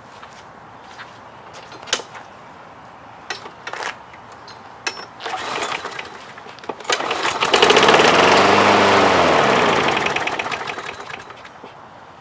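Gasoline push-mower engine, primed with a splash of fuel, is pull-started: after a few knocks it catches about seven seconds in and runs for some three seconds, its speed rising and then falling away as it dies once the splash of fuel is used up.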